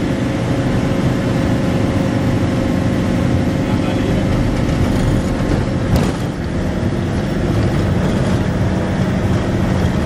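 Safari vehicle's engine running steadily while driving, heard from inside with road and wind noise through the open window. There is one short knock about six seconds in.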